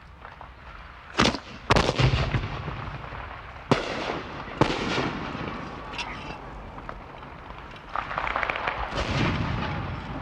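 Rifle shots at a firing range: four loud sharp cracks in the first five seconds, each with a short echoing tail, and a fainter shot about six seconds in. A longer stretch of mixed noise follows near the end.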